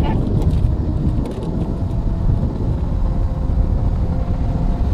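Wind buffeting the microphone as a dense low rumble, with a faint steady hum in the middle seconds and a few light paper rustles in the first second or so.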